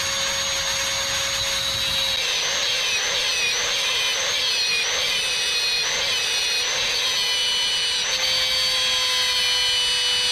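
Electric angle grinder running at speed with a steady whine. From about two seconds in its disc grinds into an 8 mm stainless-steel rod and the whine wavers under the load: it is scoring a guide notch for a barb that will then be sawn.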